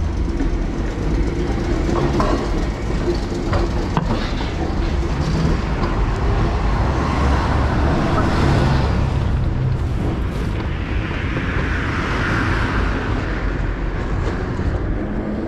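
Street traffic rumbling steadily, with one vehicle passing more loudly about eleven seconds in.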